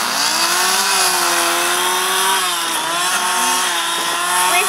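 Carving chainsaw's two-stroke engine running, its pitch slowly rising and falling as the carver works it over the wooden sculpture.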